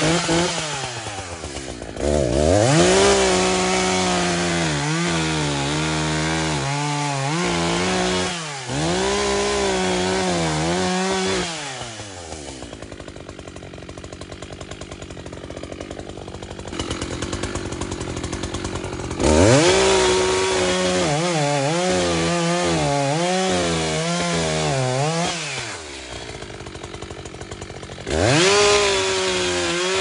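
Gas chainsaw running at high revs in three long runs, its pitch dipping and rising again and again as it bogs under load cutting wood, and dropping back to a lower idle between the runs.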